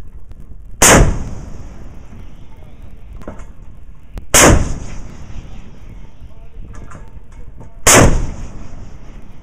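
Arleigh Burke-class destroyer's 5-inch Mk 45 deck gun firing three rounds, about three and a half seconds apart, each a loud blast that trails off briefly.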